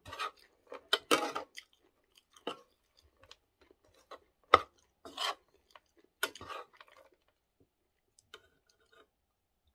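Metal tongs clinking and scraping against a frying pan while seasoned dried squid strips are tossed, in scattered short clatters with quiet gaps; the sharpest knock comes about four and a half seconds in.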